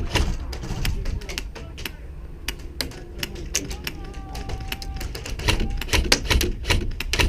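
Airsoft guns firing: a string of sharp, irregular clicks and snaps, some in quick clusters, with distant voices under them.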